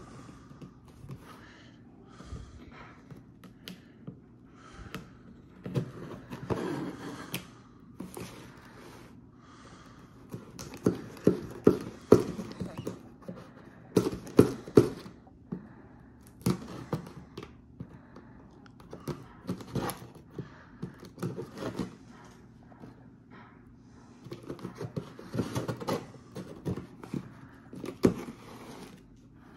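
A folding knife slitting packing tape on a cardboard box, with scraping and crackling of tape and cardboard and many sharp taps and knocks as the box is held and worked on. The clicks come in clusters, busiest a third of the way in and again near the end.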